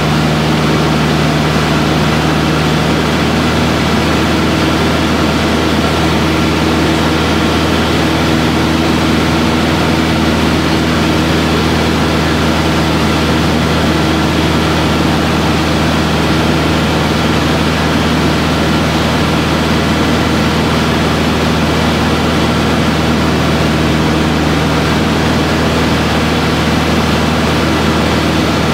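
Single-engine Aero Boero AB-115 light plane's piston engine and propeller running steadily at flight power, heard from inside the cockpit. The level holds constant, with one of its low tones dropping away about three seconds in.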